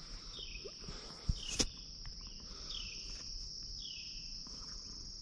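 Steady high-pitched chorus of insects, likely crickets, with a faint short falling chirp repeating about every second and two sharp clicks about a second and a half in.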